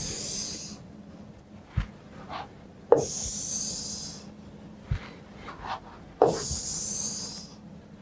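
Pen drawn across an interactive whiteboard screen three times, each stroke a sharp tap followed by about a second of high hiss as a straight line is ruled, with a few soft knocks between.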